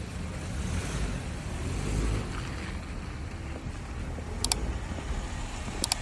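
Low, steady rumble of a car running, under a broad hiss, with two short clicks about four and a half seconds in and near the end.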